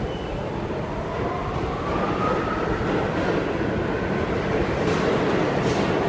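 R46 subway car running between stations, a steady rumble with a faint whine that rises slowly in pitch as the train picks up speed.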